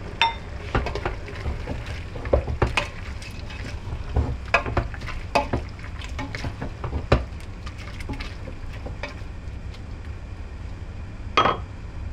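A spoon stirring beef and spices in a pressure cooker pot, with irregular clinks and scrapes against the metal over a low sizzle. A louder clatter near the end.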